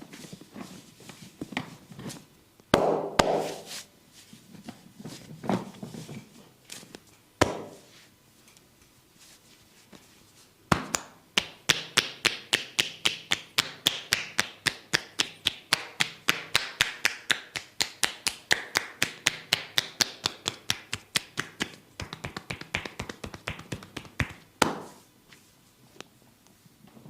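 Massage percussion: hands striking the body, scattered taps and slaps at first, then rapid, even strokes at about four to five a second from about eleven seconds in, ending with one louder strike near the end.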